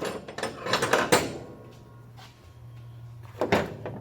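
Hand tools being handled: a quick run of sharp metal clinks and knocks in the first second or so, and one louder clank near the end, over a faint steady hum.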